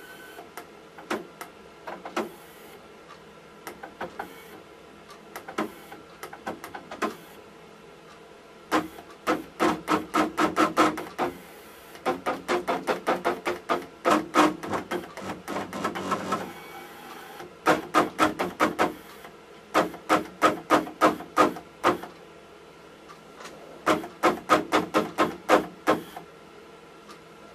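Stepper motors driving a DIY 3D printer's print-bed lift, stuttering and clicking as they are stepped: a few single clicks at first, then several runs of sharp, evenly spaced steps at about five a second that stop and start. The motors are stalling and failing to move the bed, a fault the owner traces to a cracked phase solder joint on one motor driver that let the bed bind, with the power supply overloaded.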